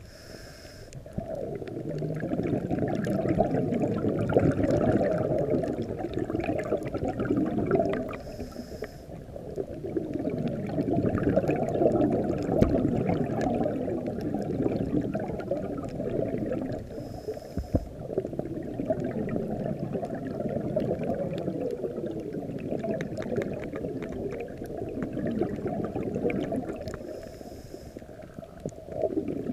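A scuba diver's breathing heard underwater: long spells of rumbling, gurgling exhaust bubbles. About every nine seconds a short lull comes, with a faint high hiss as the diver breathes in.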